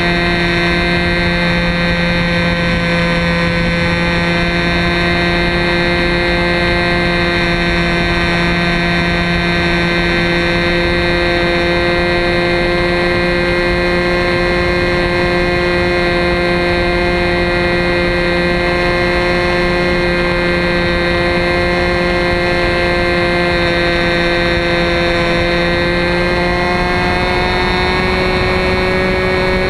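Two-stroke glow engine of an RC Telemaster model plane running steadily in flight, heard close up from a camera mounted under the plane. Its pitch rises slightly near the end.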